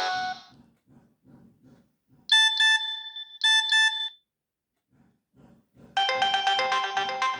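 Nokia 6021 ringtones played through the phone's loudspeaker. A polyphonic melody ends just after the start, then a short high-pitched beeping pattern sounds in two bursts, around two and three and a half seconds in. A new polyphonic melody begins about six seconds in, with faint low ticks in between.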